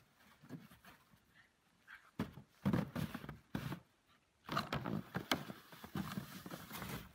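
Irregular scuffing and crunching in snow as a dog grabs and tugs a plastic sled across it, in uneven bursts with short pauses between them.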